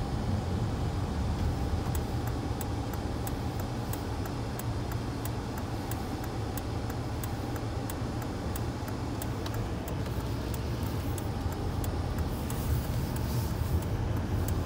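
Inside a Volvo V70's cabin, low engine and road rumble as the car slows to a stop. From about two seconds in, the turn-signal indicator ticks steadily and quickly.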